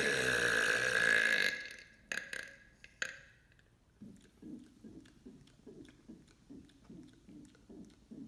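A man's long, loud burp, deep and pitched, that dies away about a second and a half in. It is followed by a few short clicks and then faint low pulses, about three a second.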